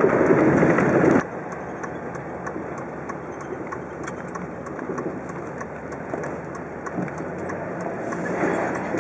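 Truck driving on a gravel road, heard from inside the cab: steady tyre and road noise with small crackles of gravel. Louder for about the first second, then drops suddenly.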